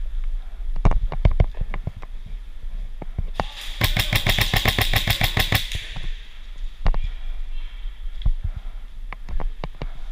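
Airsoft rifle firing a rapid full-auto burst of about two seconds near the middle. Scattered single sharp pops and clicks come before and after it.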